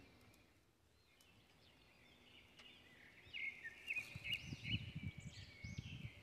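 Rustling and footsteps in dry fallen leaves from about three and a half seconds in, over faint, repeated high chirps of birds.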